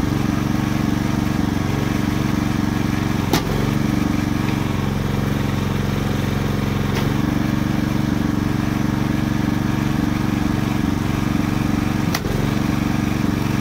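Homemade log splitter's small engine running steadily to drive the hydraulics, with two sharp cracks about three and twelve seconds in as logs are split.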